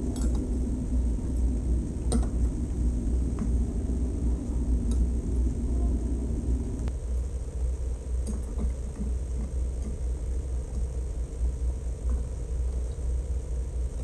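Chopsticks and bowls clinking lightly a few times during a meal, over a steady low rumble whose higher part drops away about halfway through.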